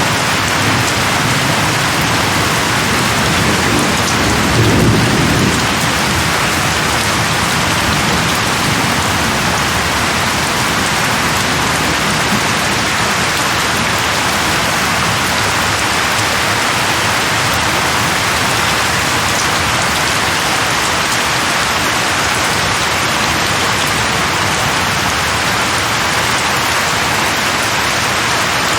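Steady heavy rain falling on leaves, with a low roll of thunder swelling about five seconds in and fading.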